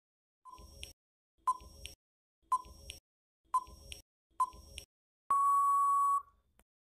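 Quiz countdown timer sound effect: five short beeps about a second apart, then one long steady beep of about a second signalling that time is up.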